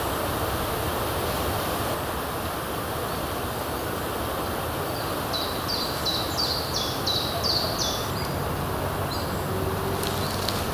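Steady wind noise, with a songbird singing one short phrase of about eight quick high notes about halfway through. A few faint clicks near the end.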